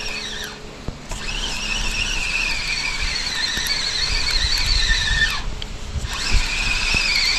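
Spinning reel whining in a high, wavering tone as its handle is cranked to wind in a hooked fish on a feeder rod, breaking off twice briefly.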